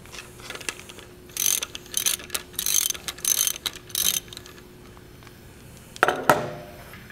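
Old World War II–era hand ratchet clicking in five short bursts as it backs a thread tap out of a freshly tapped head-stud hole in the block. Near the end come two sharp metal clanks.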